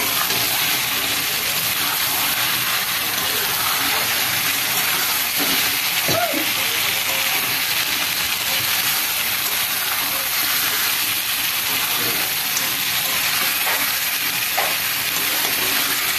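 A masala paste of onion, ginger, garlic and chilli sizzles steadily in hot oil in a kadai as it is fried down (bhuna/koshano).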